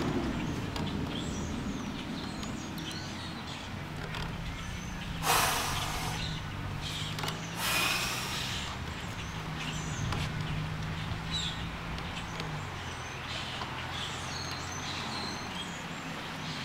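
A low, steady engine hum with a few bending tones, cutting out about two-thirds of the way through, under faint bird chirps. Two short hissing rushes of noise a couple of seconds apart.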